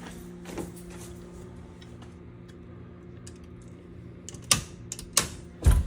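A steady low hum, then three sharp clicks and knocks in the last second and a half: a circuit breaker panel being handled and the breaker switched back on.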